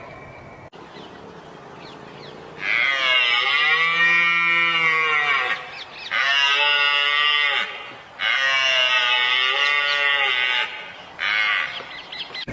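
Elk calling: four long, drawn-out calls with a rising-then-falling pitch, the first three lasting a couple of seconds each and a short fourth near the end.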